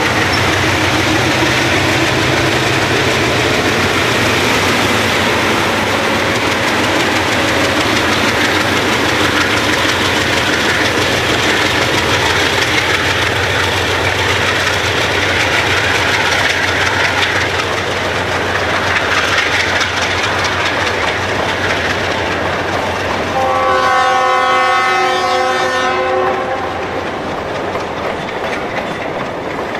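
Ex-Burlington Northern GE U30C and C30-7 diesel locomotives, with their V16 FDL engines, run past close by pulling ore cars, the engines and wheels on the rails making a steady loud rumble. About three-quarters of the way through, a multi-note locomotive horn blows for a couple of seconds.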